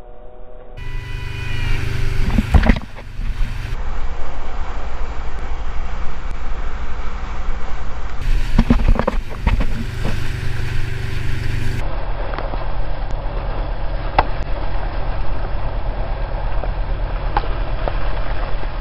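Rushing, splashing water from a boat's breaking wake, with wind buffeting an action camera's microphone and a heavy low rumble underneath. The sound changes abruptly several times, and there are a few sharp knocks or splashes, around 3 seconds in and again around 9 seconds.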